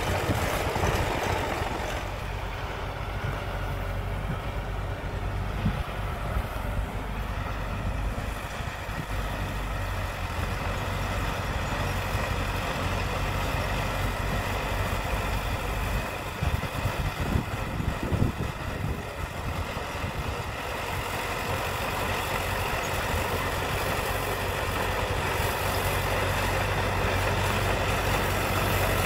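Diesel engine of a small crawler bulldozer running steadily under load as it pushes soil. A few louder irregular knocks come a little past the middle.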